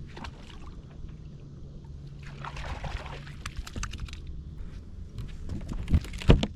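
Handling noises on a fishing boat: a short patch of water splashing and sloshing about a third of the way in, scattered clicks and knocks, and two heavy thumps near the end. A steady low hum stops about halfway through.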